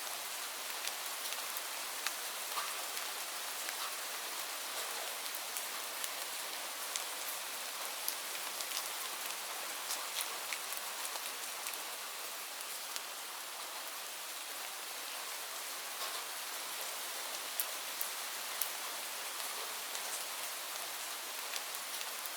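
Steady rainfall: an even hiss of rain with scattered sharp ticks of single drops striking a surface.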